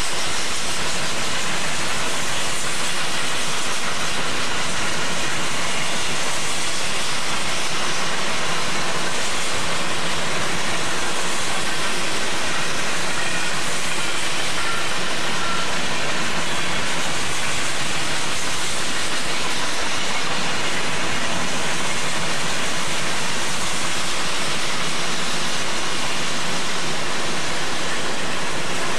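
Union Pacific mixed freight train's cars rolling past close by: a loud, steady, even noise of steel wheels on rail, with a hiss, unbroken throughout.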